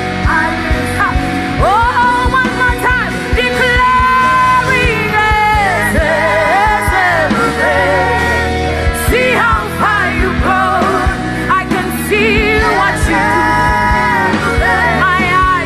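Live gospel praise-and-worship song: a female vocal group singing in harmony, with wavering held notes, over a band with drum kit and keyboard keeping a steady beat.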